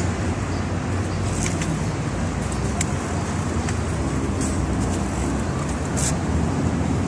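Steady city street traffic noise: cars running past with a low rumble, with a few brief high clicks.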